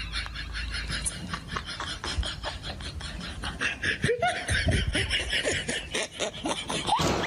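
People laughing in a run of short snickers and chuckles.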